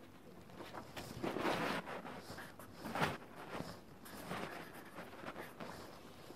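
Drawing pen scratching across paper in short strokes as a word is handwritten.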